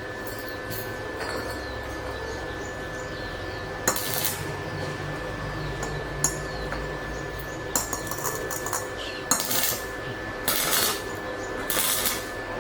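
Metal objects clinking and knocking, with a handful of short, sharp clanks spread through the stretch, over a steady background hum.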